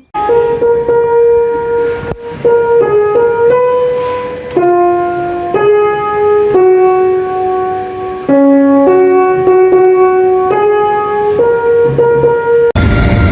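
Background music: a simple melody of held keyboard notes, changing about once a second. Near the end it cuts suddenly to a louder, noisier passage.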